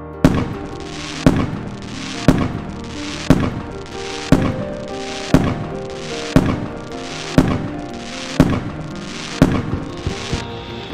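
Ten sharp firework bangs, one a second, marking a countdown from ten to one, over background music; a hissing crackle of fireworks follows the last bang near the end.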